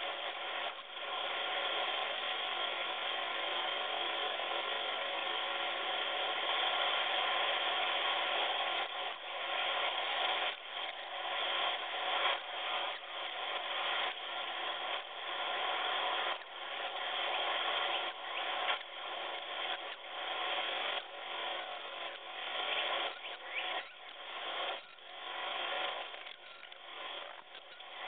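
Northern cardinal nestlings begging for food in a dense, continuous chatter that becomes more broken, with short gaps, in the second half.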